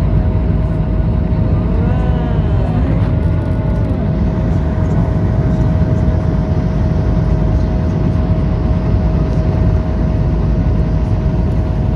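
Jet airliner cabin noise: the engines and airflow running as a steady, loud rush with a constant hum through it.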